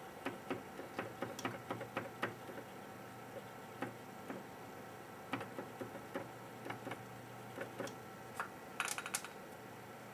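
Cotton swab wet with MEK scrubbing the pads of an Xbox 360 GPU chip held in a reballing jig, cleaning it after desoldering: light, irregular ticks and scratches, with a quick cluster of sharper clicks near the end.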